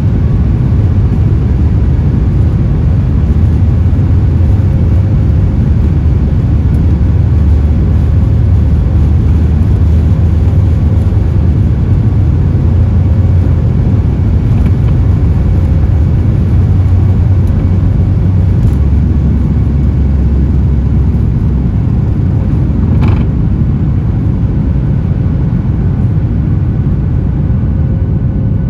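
Boeing 737 MAX 8 airliner during takeoff: a loud, steady, deep rumble of engines and airflow, with one short sharp knock about 23 seconds in.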